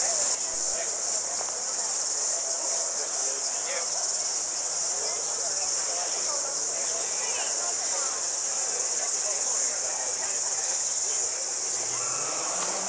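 Steady high-pitched chorus of insects, with faint crowd chatter underneath.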